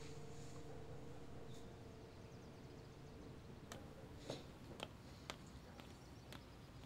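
Near silence: faint room tone, with a few soft, short clicks in the second half.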